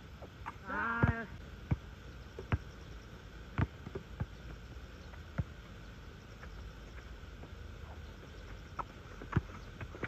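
A basketball thuds on an outdoor asphalt court with scattered, uneven knocks from bounces and play. About a second in there is a brief, loud squeal with several pitches together.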